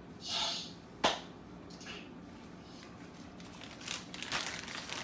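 Handling noises: a short swish, a sharp click just after a second in, then a crinkling rustle of wrapping or packaging that builds over the last second and a half.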